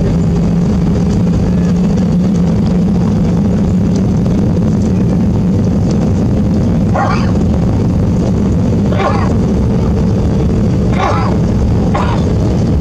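Cabin noise of an Airbus A320 taxiing: a steady low rumble and hum from the engines at idle and the aircraft rolling along the taxiway. From about seven seconds in, four short sharp cries, a second or two apart, rise above it.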